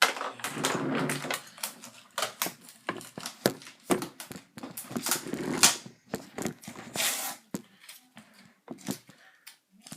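Cardboard shipping box and packaging being handled: an irregular run of rustles, scrapes and sharp knocks.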